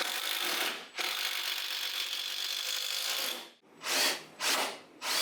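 Power drill driving a screw into cladding back framing on a wall. It makes one long run of about three and a half seconds, broken briefly about a second in, then two short bursts near the end.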